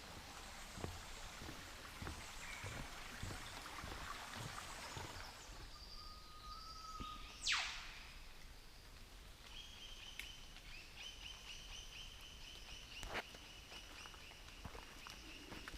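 Rainforest birds calling: a short whistled note about six seconds in, then a loud, sharp call sweeping quickly downward a second later, followed by a steady, pulsing high trill that runs on through the rest. Soft footsteps on wet ground sound through the first few seconds.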